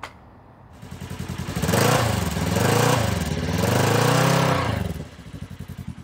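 Off-road side-by-side engine idling with an even putter, revved up twice from about a second in, then dropping back to idle near the end.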